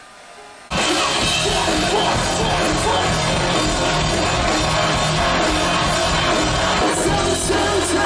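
Loud rock music with vocals, cutting in abruptly less than a second in after a brief quiet moment.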